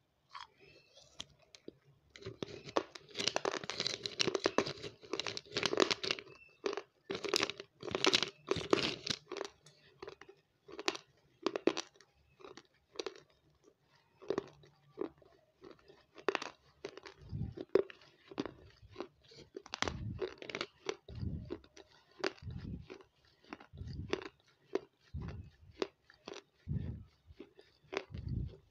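Close-miked crunching and chewing of hard, crumbly white cubes eaten by the spoonful. The crisp crunches come thick and fast for the first several seconds after a bite, then thin out into separate chewing crunches roughly once a second.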